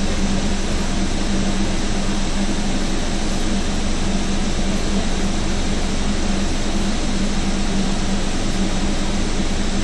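Scania OmniCity double-decker bus idling at a stop, a steady engine hum heard from inside on the upper deck.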